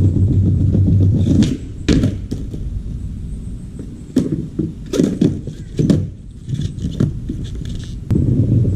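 Skateboard wheels rolling over a paver patio, then a run of knocks and clacks as the board hits a parking curb and the pavers during a trick attempt. The rolling stops about a second and a half in and picks up again after a sharp clack near the end.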